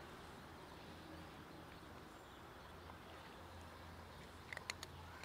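Quiet outdoor background with a low steady hum. Near the end come a few quick crisp clicks: a kitten crunching dry kibble.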